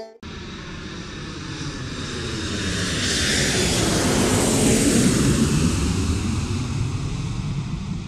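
Jet airliner flyby sound effect: a rushing engine noise that swells to a peak about four to five seconds in, then fades away as it passes.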